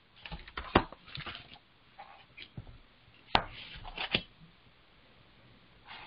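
Handling of a hardcover book: a scatter of short clicks, knocks and paper rustles, the loudest a sharp knock a little over three seconds in.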